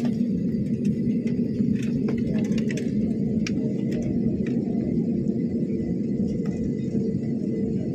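Steady low rumble of a vehicle in motion, even in level, with a few faint light ticks over it.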